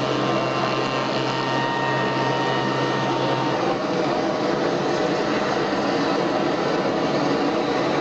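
Homebuilt propane-fed jet engine running with a loud, steady rushing roar. A steady hum and whine mixed into it cut out about three and a half seconds in, while the rush carries on.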